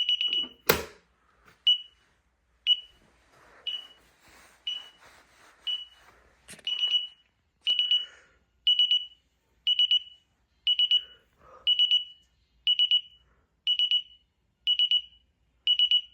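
DSC SCW9047 wireless alarm panel sounding its exit-delay beeps. At first a single high beep comes about once a second; about seven seconds in, each beep becomes a quick burst of several beeps, still once a second: the panel's warning that the exit delay is running out as it arms. A quick run of beeps and a sharp knock come near the start.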